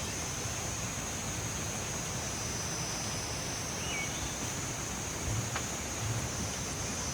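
Steady rushing of a river flowing over rocks, with a constant high-pitched hiss above it.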